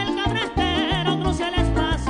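Live llanero (joropo) music played on llanero harp and cuatro: the harp's plucked bass notes and treble runs keep a driving beat, with a singer's voice wavering over it.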